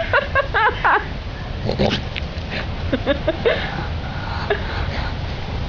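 Goats calling in a quick run of short, pitched bleats in the first second, then a few more short calls about three seconds in.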